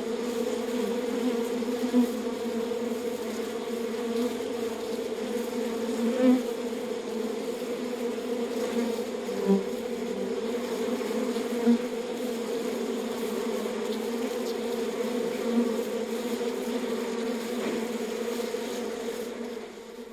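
A swarm of bees buzzing: a steady, even drone with a few brief louder swells. It dies down just before the end.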